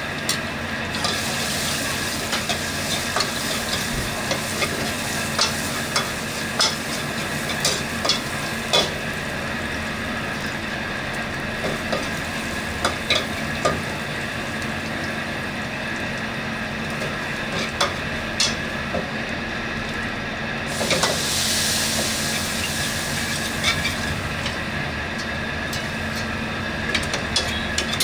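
Garlic and chili sizzling in oil in a steel wok, with a metal ladle clicking and scraping against the pan as it stirs. About three-quarters of the way in, the sizzle briefly grows louder and brighter, then settles again as the ladle keeps stirring squid teeth in the wok.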